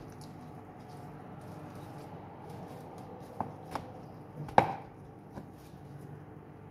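Chef's knife cutting raw chicken breast into strips on a cutting board: a few sharp knocks of the blade against the board past the middle, the loudest one a little later with a brief ring.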